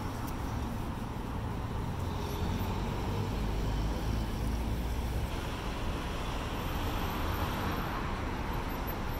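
City street ambience: steady road traffic noise with a low rumble.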